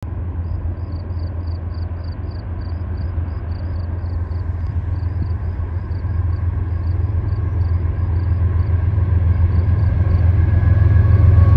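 Diesel locomotives of an approaching CSX freight train, a low rumble growing steadily louder as they near. A high, rapid chirping repeats above it until near the end.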